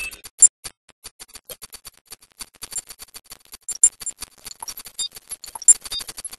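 Electronic music passage made of rapid, irregular clicks and ticks, some with short high pings, with no sustained notes.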